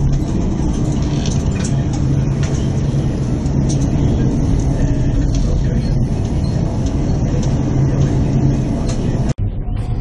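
Loud, steady roar of storm wind and heavy sea heard from a container ship's bridge, over a steady low hum. It cuts off abruptly near the end.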